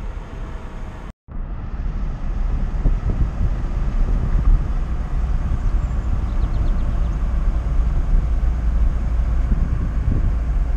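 Car cabin noise while driving: the steady low rumble of engine and tyres on the road. It drops out briefly about a second in, then carries on slightly louder.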